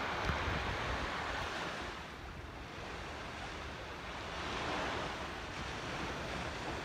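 Small waves breaking and washing up a sandy shore, the surf swelling twice, with a little wind buffeting the microphone.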